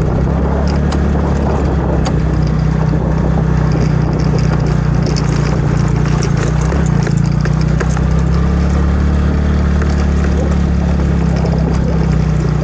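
A vehicle engine running steadily, a constant low drone that holds the same pitch throughout.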